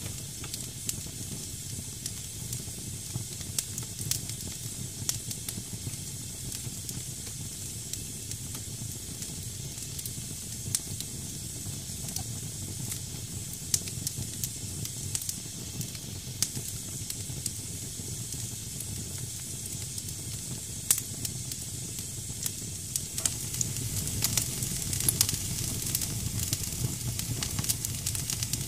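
Damp firewood burning in a fireplace: a steady hiss with frequent sharp crackles and pops over a low rumble of flame, which grows louder near the end.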